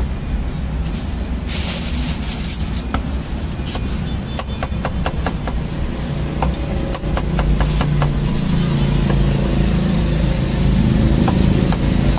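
Cleaver chopping on a wooden chopping block, with a quick run of sharp knocks about halfway through and a few single chops later. Steady street traffic and engine rumble lie underneath and grow louder near the end.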